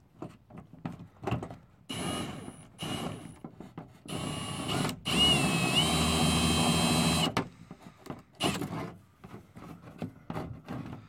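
Power drill whining in two short bursts, then running steadily for about two seconds, its pitch stepping up once: drilling a hole to mount a car's rear diffuser.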